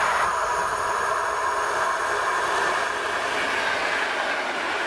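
EN57-type electric multiple unit approaching and running past on the line, its wheels on the rails making a steady rolling noise.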